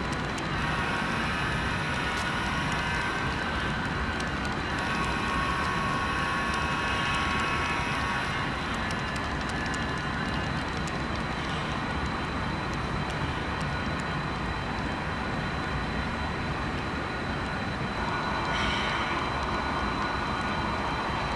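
Diesel locomotive horn sounding twice, a long blast then a longer one, over steady train running noise. A different, rougher sound comes in near the end.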